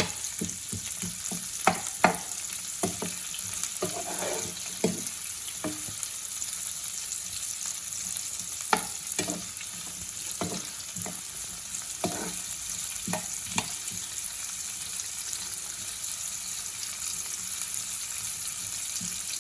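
Sliced onions sizzling in hot oil in a non-stick pan as they fry to brown, with a steady hiss and scattered sharp clicks as they are stirred.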